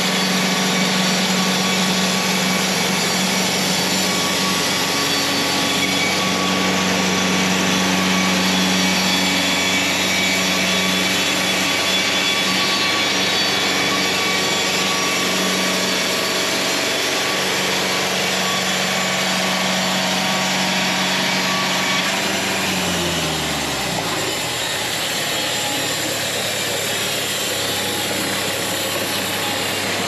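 Wood-Mizer LT70 Super Wide portable bandsaw mill running steadily on its onboard engine, with a constant hiss over the hum. About three quarters of the way through, the engine slows, its tone falling steeply in pitch over a second or two, and then it runs on at a lower, steady speed.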